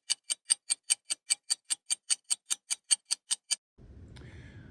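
Rapid, even clock-like ticking, about five ticks a second, that stops about three and a half seconds in and gives way to a faint low hum of room tone.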